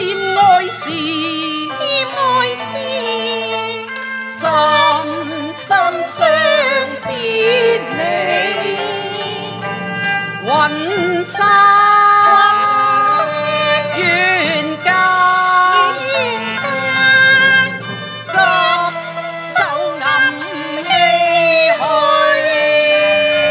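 Cantonese opera music: a slow, heavily ornamented melody with wide vibrato over a steady instrumental accompaniment.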